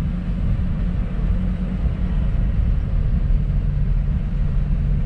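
Car engine and road noise heard inside the car's cabin, a steady low drone while cruising at about 22 km/h.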